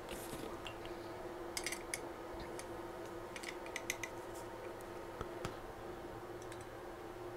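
Small metal tools on screws: a hex key and a small wrench clicking and ticking against the screws and aluminium plate of a rotary roller's holder bracket as the bolts are snugged up. The clicks come in short clusters about one and a half, three and a half, and five seconds in, over a faint steady hum.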